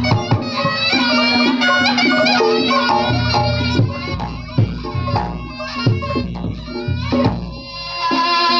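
Reog Ponorogo accompaniment music: a reedy slompret (shawm) melody over a steady drone, with drum and gong strikes. The melody drops away for a few seconds in the second half, leaving mostly the low drum and gong beats, then returns near the end.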